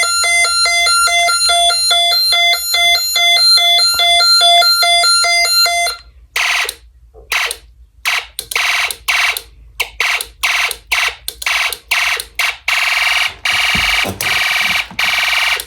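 Fire alarm sounding, set off by a light touch on a pull station. For about the first six seconds it gives a steady electronic multi-tone signal that steps in a quick rhythm. After that it changes to a harsher alarm in short, uneven bursts with brief gaps.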